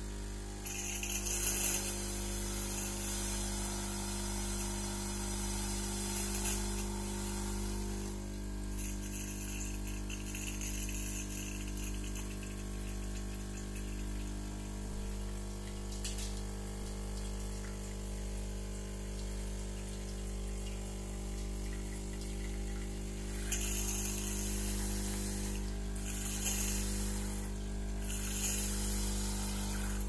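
De'Longhi pump espresso machine running a citric acid descaling flush: its vibratory pump hums steadily while the solution is pushed through, with several short hissing spurts of water and steam.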